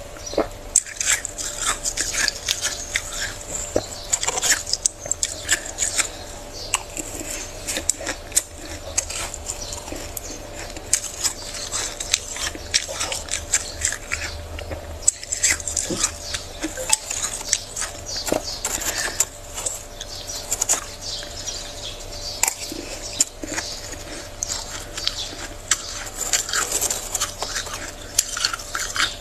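Spoon scraping and crunching through thick powdery freezer frost, a dense, unbroken crackle of breaking ice crystals, over a faint steady hum.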